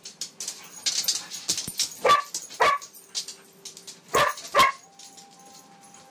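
Two dogs wrestling in play: four sharp play barks in two quick pairs, about two seconds apart, over light scuffling.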